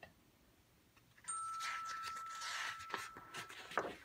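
Paper rustling and crackling for about two and a half seconds as a picture-book page is turned, ending in a soft click, with a thin steady high tone underneath.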